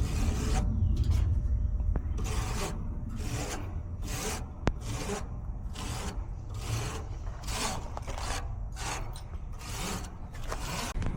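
Cleaning of a very dirty AC condenser coil: about a dozen short rasping strokes, irregularly spaced at roughly one every half to one second, over a steady low rumble.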